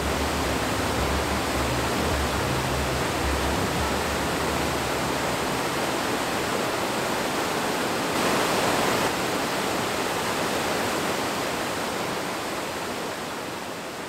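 Steady rush of falling water from a small waterfall, swelling a little about eight seconds in and easing slightly near the end.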